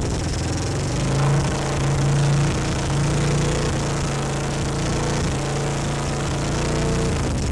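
1983 Honda ATC 200E Big Red's air-cooled single-cylinder four-stroke engine running through a newly fitted aftermarket Honda CRF230 muffler, its speed rising briefly a couple of times in the first few seconds.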